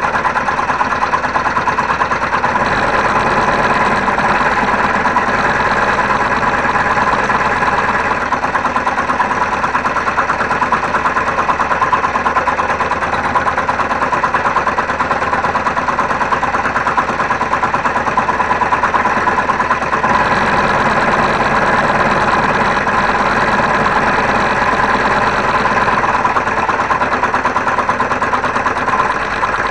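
Homemade scroll saw running steadily, its blade moving up and down fast as it cuts a wooden board.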